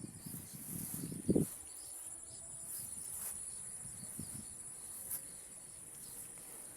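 Steady high-pitched chorus of insects, with low rustling and one thump about a second and a half in, the loudest sound.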